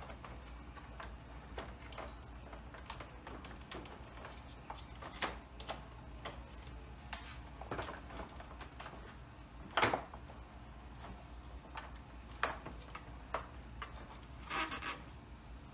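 Scattered plastic clicks, knocks and rustles as a radiator fan assembly is worked up and out between hoses and catches, with a sharper knock about ten seconds in. A low steady hum runs underneath.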